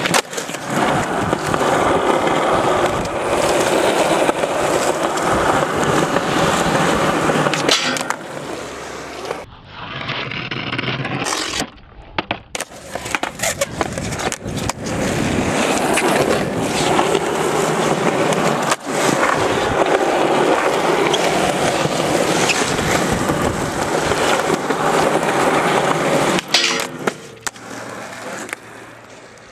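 Skateboard wheels rolling loudly on concrete, with sharp clacks of the board popping ollies and landing. The rolling noise cuts off abruptly a few times about a third of the way in.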